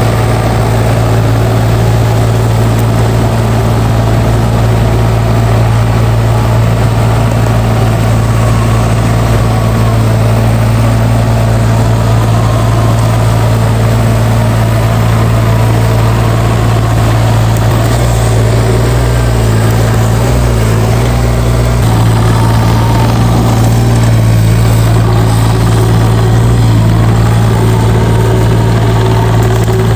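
Engine of heavy earth-moving equipment running steadily with a low, even hum, wavering briefly about two-thirds of the way through.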